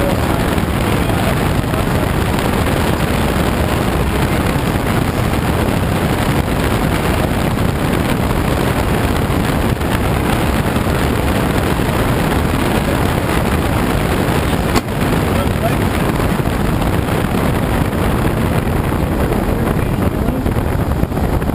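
Steady rush of air streaming over a glider's canopy and fuselage in flight, heard inside the cockpit.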